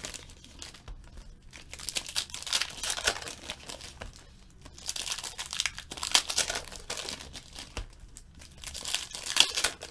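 Foil trading-card pack wrappers crinkling and cards rustling as they are handled, in several separate bursts of crackling with short pauses between.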